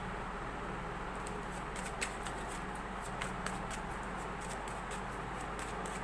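Tarot cards being shuffled by hand: an irregular scatter of soft card clicks and flicks, over a steady low hum.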